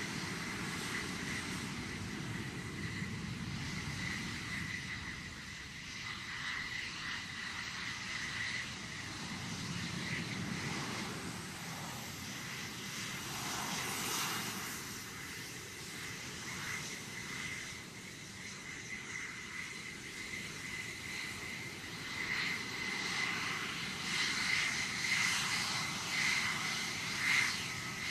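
Fighter jet turbine engines of taxiing IAI Kfir and F-16 jets: a steady high whine over a low rumble, growing louder near the end.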